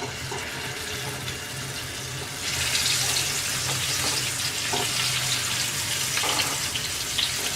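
Eggplant quarters coated in spice paste sizzling as they fry in hot oil in a kadai, with a few light clicks; the sizzle grows louder about two and a half seconds in.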